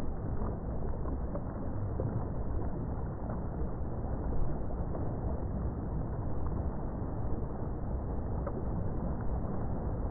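A boat underway: a steady low rumble with water rushing and splashing past the hull.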